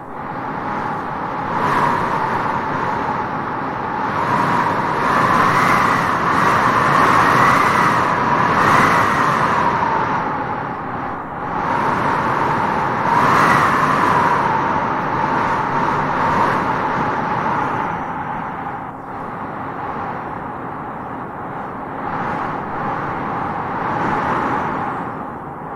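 Wind blowing in gusts across open grassland, a steady rush that swells and eases, with a whistling tone that rises and wavers at the strongest gusts.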